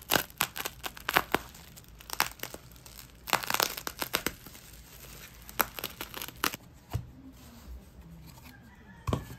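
Plastic mailer and bubble wrap crinkling and tearing as a package is slit open and unwrapped, in irregular sharp crackles that thin out after about six and a half seconds.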